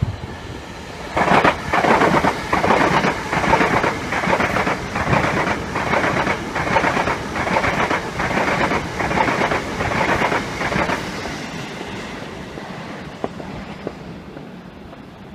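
A train passing through the station, its wheels clattering over the rail joints in a steady rhythm of about two beats a second for around ten seconds. The sound then fades away as it goes.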